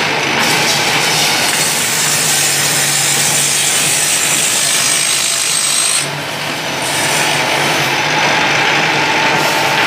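Bamboo stick cutting machine running while a bundle of thin bamboo incense sticks is pushed through its saw to cut them to length, a steady rasping noise with a high whine for a few seconds. The sound dips briefly about six seconds in.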